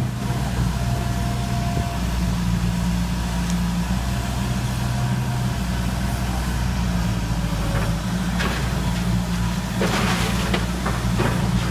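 Demolition excavator's diesel engine running steadily. Near the end, its grapple bites into the stone wall and sharp cracks and clatter of breaking masonry come through.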